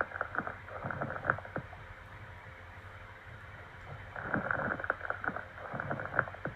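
Lung crackles (rales) heard through a stethoscope: two breaths, each carrying a run of clicking, bubbling pops, the second starting about four seconds in. They are a sign of fluid or secretions in the airways, as with pneumonia, pulmonary oedema, pus or bleeding.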